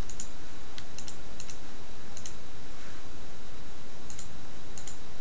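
Light, scattered clicks of a computer mouse and keyboard, a handful spread over the few seconds with some in quick pairs, over a steady microphone hiss.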